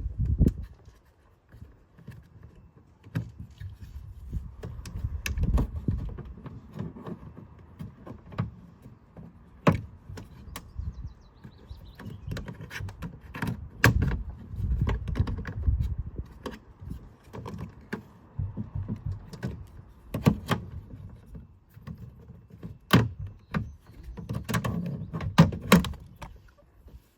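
Irregular knocks, clicks and rattles, some sharp and loud, scattered unevenly over a low rumble.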